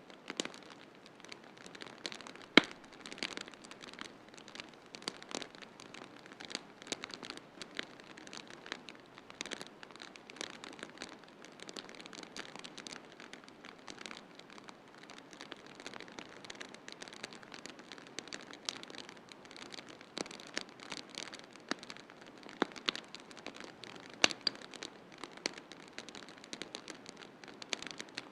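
Wood fire crackling in a fireplace, with irregular sharp pops and snaps over a steady hiss of snowstorm noise; one pop about two and a half seconds in is the loudest.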